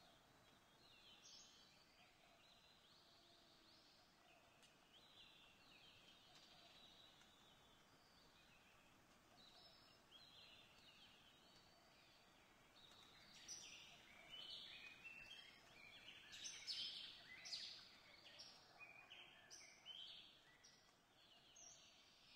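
Faint birdsong: many short chirps and trills from several birds, sparse at first and busier and louder from about halfway through.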